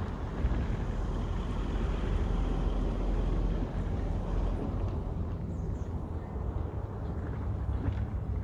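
Quad roller skate wheels rolling on outdoor pavement, a steady rumble, with wind buffeting the microphone.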